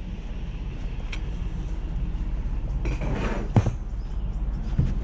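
Vehicle engine idling with a steady low rumble. A click comes about a second in, and a rustling scrape about three seconds in ends in a sharp knock.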